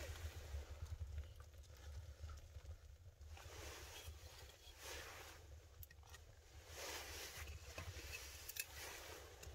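Faint sound of split wood being laid by hand onto a small kindling fire in a stone fireplace: waves of scraping and rustling as pieces are set down, with a few sharp crackles from the fire and a steady low hum underneath.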